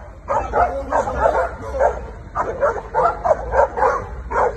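Large dogs barking repeatedly in quick succession, about two or three barks a second. It is defensive barking at a man confronting them in the street.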